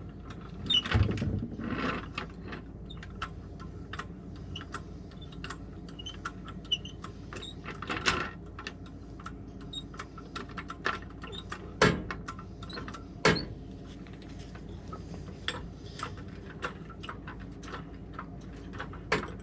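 Scattered metal clinks and clicks of hand tools and parts being handled while working on a pickup's front hub, with four louder knocks spread through the stretch.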